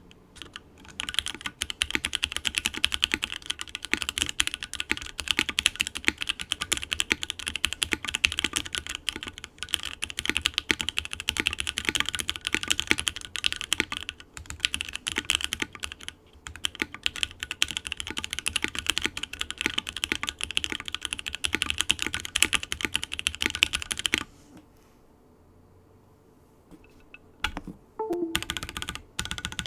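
Steady fast typing on a Portal65 mechanical keyboard with lubed NK Dry Black (JWK Black) linear switches on an FR4 plate in an O-ring mount, under GMK keycaps. Each keystroke rings with the reverb of the case. The typing stops about three-quarters of the way through, and a few keystrokes return near the end.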